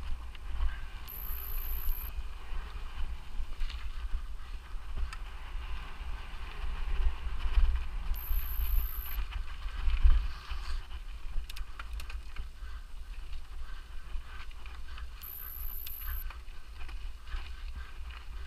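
Mountain bike being ridden along a rough trail: wind rumbling on the microphone over a steady rattle and clatter of the bike, with heavier knocks about seven and ten seconds in.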